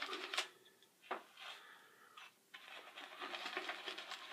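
Synthetic shaving brush working up a lather of Mitchell's Wool Fat soap: a wet, crackling swish of many fine clicks. It stops about half a second in, leaving a few single clicks, and picks up again a little past halfway.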